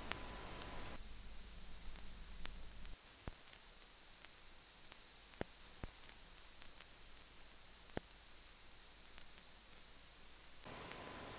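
Crickets chirping in a steady, high-pitched chorus, with a few faint clicks scattered through it.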